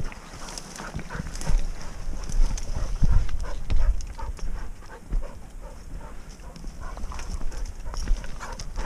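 Footsteps on loose, stony ground and twigs and scrub scraping past, with irregular low thumps from the walking.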